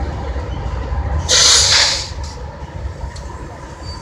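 Diesel locomotives of a BNSF freight train passing with a steady low rumble. About a second in, a loud burst of hissing air from one of the locomotives lasts under a second.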